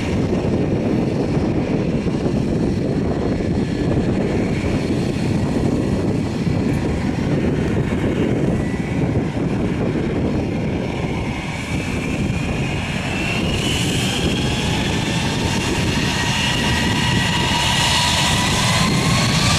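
Jet engines of a Wizz Air Airbus A320-family airliner on the runway, a steady rumble with a whine. From about halfway through, the whine climbs steadily in pitch and the sound grows louder as the engines spool up for takeoff.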